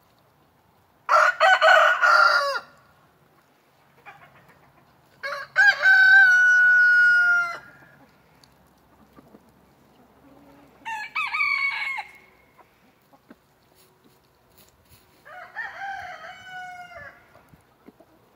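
Roosters crowing: four crows a few seconds apart, the second the longest and loudest, the last fainter.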